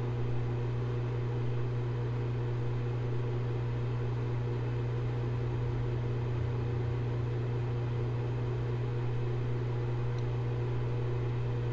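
Axial cooling fan running steadily: a constant low hum with an even airflow hiss. It has been switched on through a contactor by a thermostat set to cut in at 30 °C, and it is cooling the sensor.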